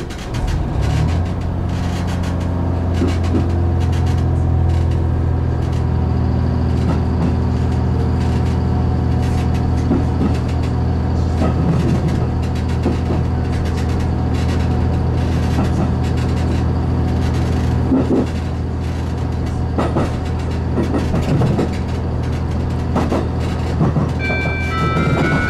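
HB-E300 series hybrid railcar running, its diesel engine-generator and drive giving a steady low drone that builds up just after the start, with wheels clicking now and then over rail joints and points. Near the end a chime melody begins.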